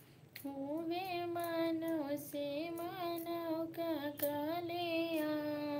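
A woman singing solo, holding long notes with a wavering pitch, after a brief pause at the start.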